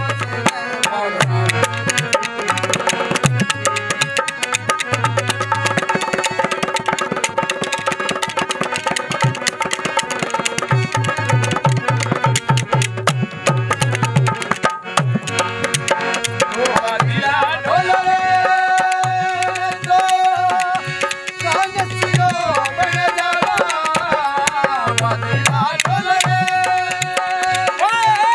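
Rajasthani folk music: a dholak drum plays a steady rhythm with harmonium and clicking wooden khartal clappers in an instrumental passage. From a little past halfway, male voices come in singing over it.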